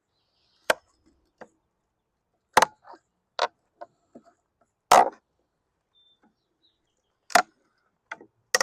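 Hive tool prying stapled wooden slats off a package bee box: a series of about seven sharp cracks and snaps, irregularly spaced, the loudest a little under three and five seconds in.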